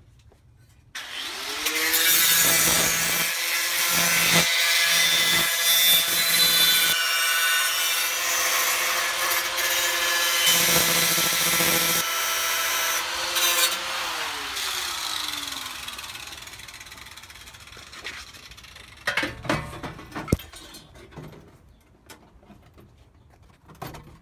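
Angle grinder with a cut-off disc spinning up and trimming a sheet-steel floor-pan patch panel, a steady motor whine under loud hissing cutting noise. About fourteen seconds in it winds down with a falling whine, and a few sharp knocks follow.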